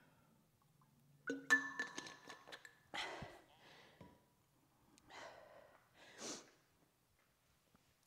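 A metal water bottle clinks and rings briefly as it is capped and handled, followed by a few heavy breaths of someone recovering from exercise.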